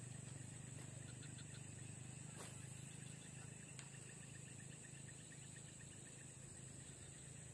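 Faint, steady, high-pitched drone of insects over a low steady hum, with a couple of faint clicks.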